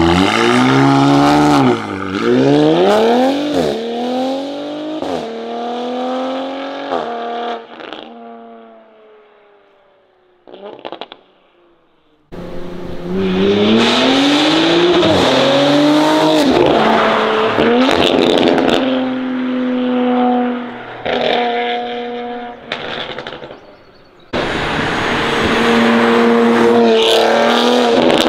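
2023 Audi RS5's twin-turbo V6, fitted with 034 Motorsport downpipes and an AWE Touring exhaust, accelerating hard through the gears heard from outside: the exhaust note climbs and drops back at each upshift, then fades as the car pulls away. A second run starts abruptly with two more climbing upshifts before the note settles to a steadier drone.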